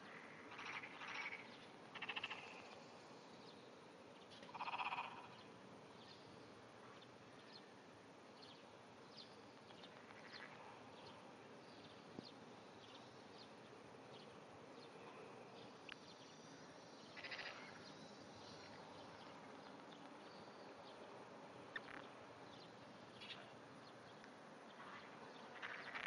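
Wrinkled frog (tsuchigaeru, Glandirana rugosa) calling faintly: short, trembling, vibrating calls, about half a dozen, spaced unevenly several seconds apart.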